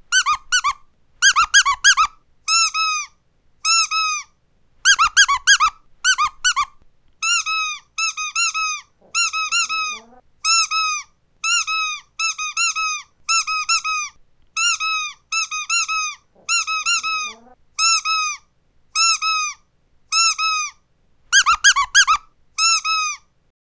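Squeaky dog toy squeezed again and again, one short rising-and-falling squeak after another, with three quick flurries of rapid squeaks.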